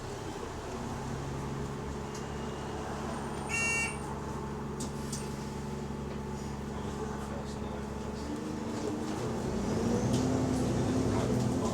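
Bus engine with an exhaust leak running, heard from inside the bus; its note rises and gets louder from about two-thirds of the way through as the bus pulls away. A short electronic bell tone sounds once, about a third of the way in.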